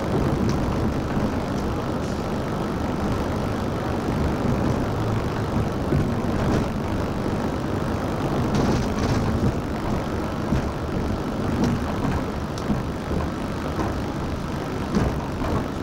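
Steady engine and road noise heard from inside a moving bus, with a few faint clicks and rattles from the cabin.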